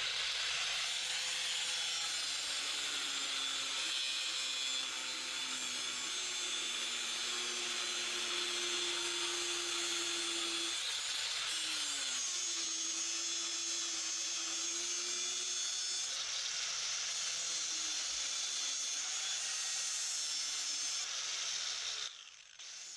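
Angle grinder grinding steel pipe, a steady hiss of disc on metal with the motor's pitch sagging and recovering as it is pressed in. It shuts off near the end.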